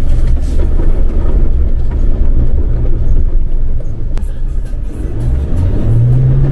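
Mahindra Thar SUV driving on a wet, muddy track, with a steady low engine rumble and road noise. Its engine note rises near the end as it accelerates. Background music plays underneath.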